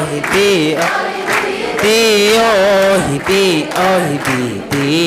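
A young man's voice chanting a Somali poem into a microphone, in long held notes that waver and slide in pitch, with short breaths between phrases.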